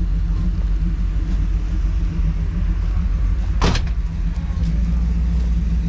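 A car engine running at a steady idle, a low even rumble. There is one brief sharp noise about three and a half seconds in.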